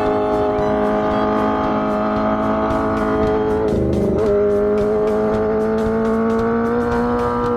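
Swapped-in 250cc four-cylinder engine of a Honda Gorilla minibike running at high revs, a high multi-toned note that holds and climbs slightly. It dips briefly a little before four seconds in and picks up again.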